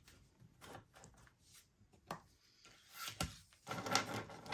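Faint rustling and light taps of paper bills and cash envelopes being handled on a tabletop: a few separate soft ticks, then a denser rustle near the end.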